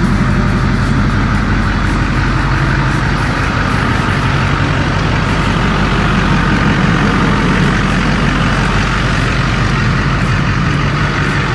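LLY Duramax 6.6-litre V8 turbo-diesel with a 64mm turbo and 3-inch downpipe, straight-piped, idling steadily just after its first start to warm up and circulate oil.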